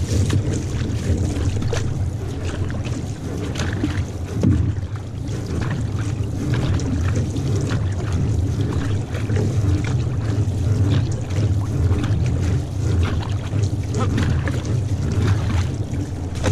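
Water rushing and splashing along the hull of a paddled outrigger canoe, with irregular splashes from paddle strokes over a steady low rumble of water and wind on the microphone.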